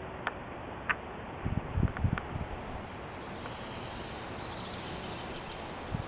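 Steady outdoor background hiss, with two sharp clicks in the first second and a cluster of low thumps around two seconds in, the loudest part, while the camera is being moved.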